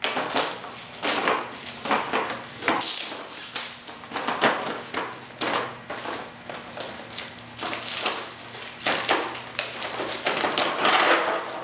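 Screwdrivers and their packaging being handled and set down: irregular clicks, light knocks and rustling.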